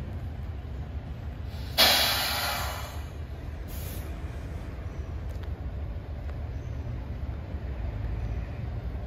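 A sudden loud burst of air hiss about two seconds in that fades over about a second, with a shorter hiss soon after, over a steady low rumble.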